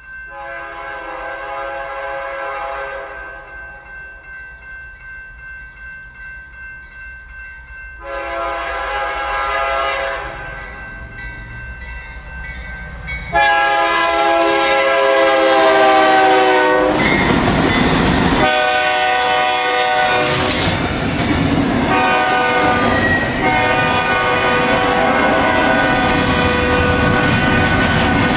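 Diesel freight locomotive's air horn sounding long blasts for a grade crossing: two long blasts, then a third, louder one from about halfway that is held on as the locomotives pass close by with a loud rush of engine noise. After that comes the steady rolling clatter of double-stack container cars, with a crossing signal ringing evenly underneath.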